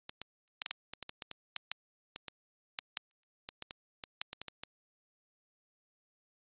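Typing sound effect: a quick, irregular run of short keystroke clicks with silence between them, stopping near the end.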